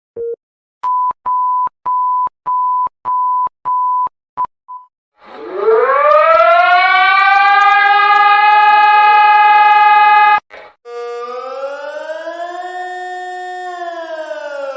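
Emergency alert tones: a short low beep, then a string of about eight evenly spaced higher beeps. Then a siren winds up to a steady wail and cuts off suddenly about ten seconds in, followed by a siren tone slowly rising and falling.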